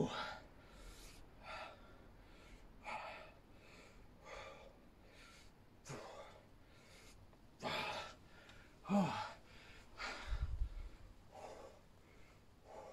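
A man breathing hard from exertion, with heavy puffing exhalations every second or so, one of them a low grunt. A brief low rumble comes about ten seconds in.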